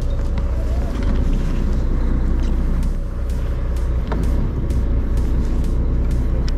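Sportfishing boat's engine running with a steady low drone.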